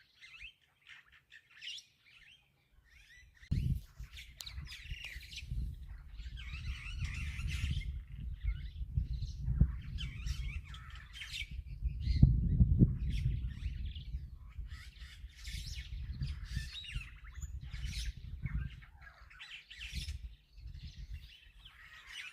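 Many birds chirping and calling, with a low, uneven rumble that comes in about three and a half seconds in and fades a few seconds before the end.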